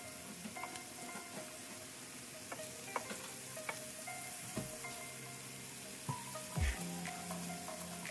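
Zucchini, mushrooms and asparagus sizzling steadily in a hot electric skillet, with tongs stirring them and clicking against the nonstick pan several times.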